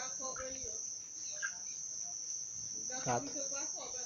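Steady high-pitched chirring of insects, with a few short vocal sounds over it, the loudest about three seconds in.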